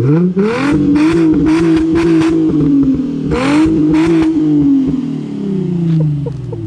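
Infiniti G35's VQ-series 3.5-litre V6 free-revved while parked: the revs rise and are held up for a few seconds, drop briefly, rise and are held again, then fall back toward idle near the end.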